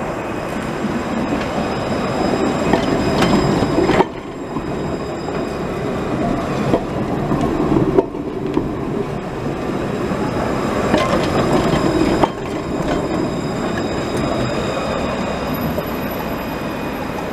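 Tram running past close by on street track: a steady rumble of the car and its wheels on the rails, with faint high wheel squeal and a few clicks. The sound breaks off and restarts abruptly three times, about every four seconds.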